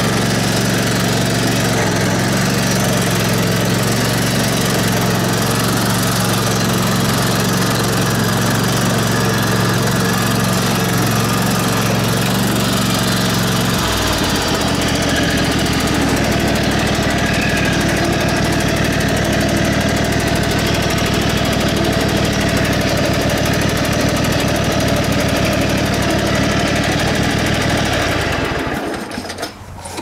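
Craftsman GT3000 riding mower's 23 hp Kohler engine running steadily after a no-start fix. About halfway through, its note changes. Near the end, the engine shuts off and goes quiet.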